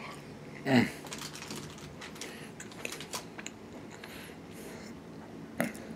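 Close-up eating sounds of someone working through barbecue chicken wings: chewing, lip smacks and small wet clicks. About a second in there is a brief louder voice-like sound that falls in pitch.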